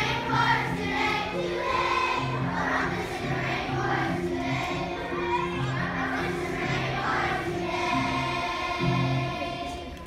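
Children's choir singing a song over an instrumental accompaniment with a steady bass line; the song ends and fades away near the end.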